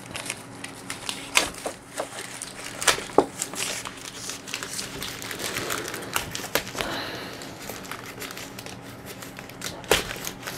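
Plastic shipping packaging crinkling and tearing as it is cut open with a knife and pulled apart: irregular rustling with scattered sharp clicks and scrapes.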